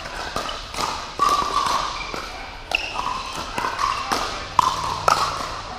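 Pickleball paddles striking a plastic pickleball in a fast doubles rally: a string of sharp, irregularly spaced pops, each ringing briefly in a large indoor hall.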